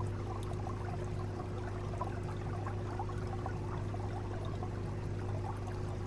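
Aquarium water bubbling and trickling steadily, as from a running sponge filter, over a steady low hum.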